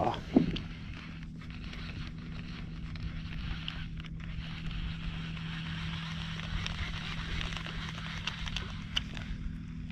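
Lew's Mach Crush baitcasting reel being handled, with light clicks over a steady low hum, and a single thump about half a second in.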